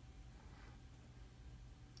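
Near silence: room tone with a faint steady low hum.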